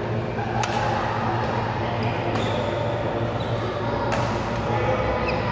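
Badminton rackets striking a shuttlecock in a doubles rally: three sharp hits, each about a second and a half or more apart, over a steady background hum.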